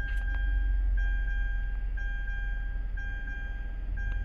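Mitsubishi Pajero Sport dashboard warning chime sounding about once a second as the instrument cluster powers up, each chime a steady tone lasting most of a second. Under it runs a low steady engine rumble, with a couple of clicks near the end.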